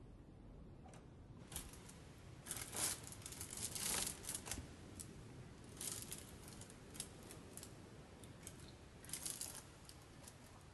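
Close, crackly rustling and crinkling as hands handle something, coming in irregular bursts. The bursts are densest from about one and a half to four and a half seconds in, with shorter flurries around six and nine seconds.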